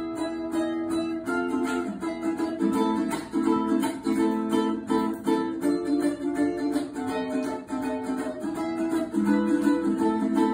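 Ukulele played instrumentally: a plucked melody over chords, the notes following one another at an even pace.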